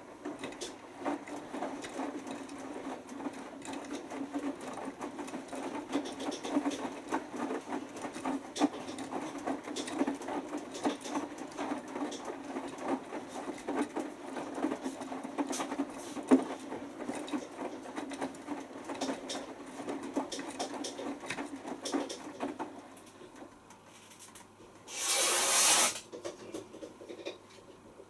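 Beko front-loading washing machine tumbling a wet load in a 60 °C wash: clothes sloshing and slapping inside the turning drum. The tumbling stops about 23 seconds in as the drum comes to rest, and a loud hiss of about a second follows near the end.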